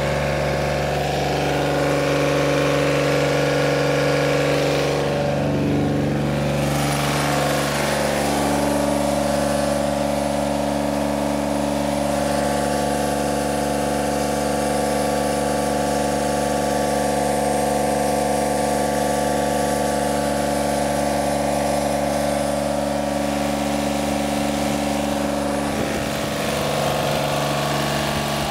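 Yanmar 3TNE82A three-cylinder diesel engine of a John Deere 3215B fairway mower running steadily, with a brief change in its tone about six seconds in.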